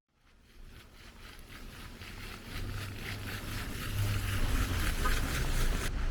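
Steady background rumble and hiss, like wind or distant traffic, fading in from silence and growing louder.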